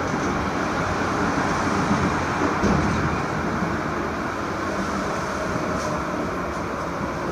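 SGP E1 tram with C3 trailer running on rails: a steady rumble of wheels and running gear, with a brief louder bump about two and a half seconds in.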